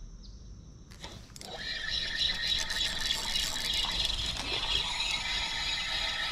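A click about a second in, then a spinning reel being cranked steadily: a continuous whirring of the reel's gears as the line is retrieved.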